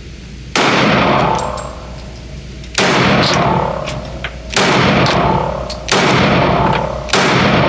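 Five pistol shots from a Glock 32 (.357 SIG), one about every second and a half. Each shot has a long reverberant tail, the echo of an indoor range.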